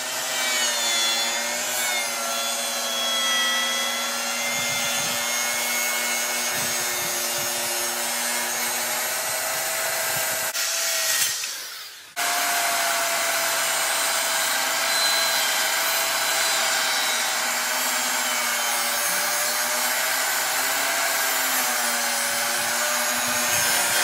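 Electric power saw running and cutting plywood: a steady motor whine over a high hiss, its pitch wavering slightly as the blade loads. The sound breaks off briefly about halfway through and then starts again.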